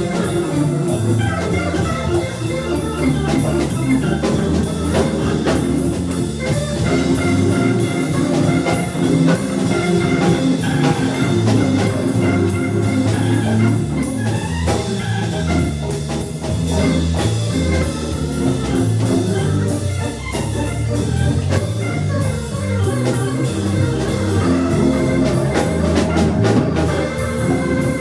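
A band playing an instrumental piece, with a drum kit keeping a steady beat on the cymbals and a guitar.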